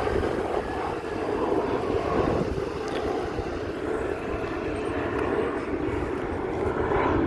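Aircraft engine noise at an airport, a steady rumble with no sharp events.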